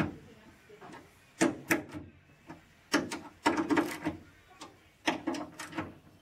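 Metal fittings on the underside of a car's raised lid being worked by hand: sharp metallic clicks and scrapes in several short clusters about a second apart.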